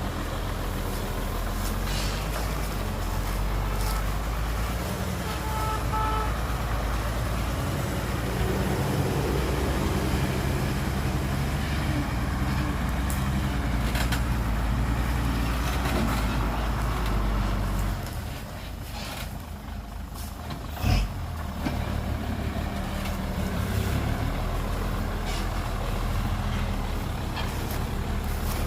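Heavy diesel dump truck engine running steadily. A brief beep sounds about six seconds in, and the engine noise drops for a few seconds past the middle before a single sharp thump.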